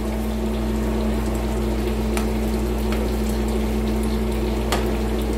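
Pork belly frying in bubbling oil, a steady sizzle over a constant low hum, while a metal ladle stirs a stainless steel pot of broth and clinks against it about two, three and nearly five seconds in.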